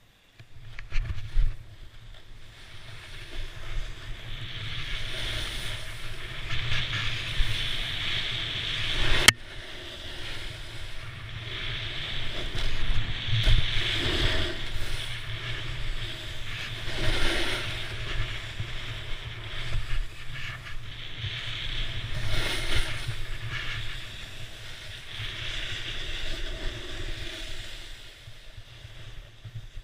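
Snowboard sliding and carving through deep powder snow: a rushing hiss of snow that swells and eases with each turn, over wind buffeting the microphone. One sharp click about nine seconds in.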